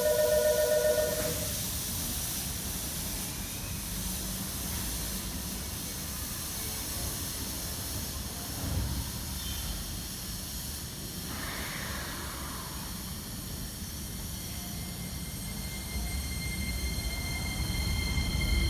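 Steady hiss and low rumble of a railway station platform. Toward the end an approaching electric commuter train's rumble builds and a steady high whine comes in. A pitched musical tone cuts off about a second in.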